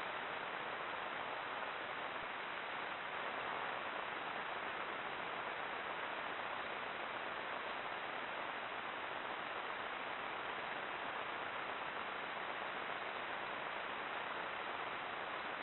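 Steady, even hiss from a trail camera's built-in microphone, with no distinct sounds standing out of it.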